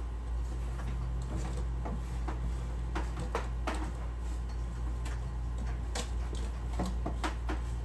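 Scattered light clicks and knocks from parts being handled while a mini-split air conditioner is installed, over a steady low hum.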